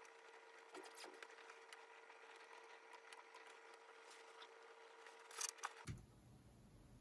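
Near silence: room tone with a faint steady hum, a few soft clicks about a second in, and a short run of louder clicks near the end.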